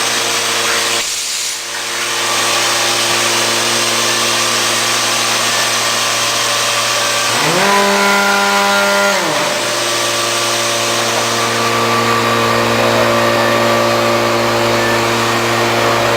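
CNC wood router working: a steady machine whine and hum over cutting noise. There is a brief dip about a second in, and a rising, held, then falling tone about halfway through that lasts about two seconds.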